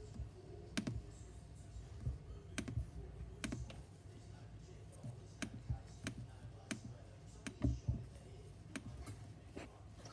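A dozen or so computer mouse clicks, irregularly spaced about one a second.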